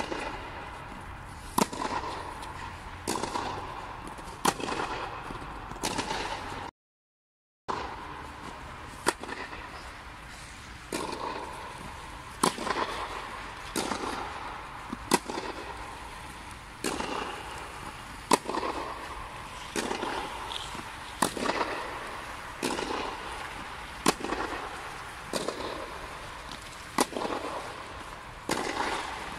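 Tennis rally: a racket strikes the ball about every one and a half seconds, each hit a sharp crack echoing under the inflated court dome. The sound drops out briefly about seven seconds in.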